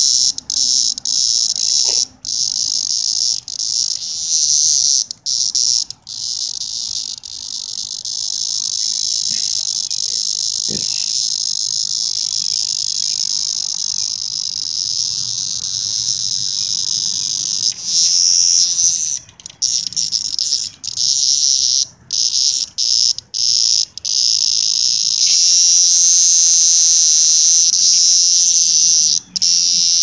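A cicada buzzing loudly and high-pitched as a puppy paws at it. It breaks off and restarts in short stops over the first several seconds and again past the middle, and runs unbroken in between and near the end.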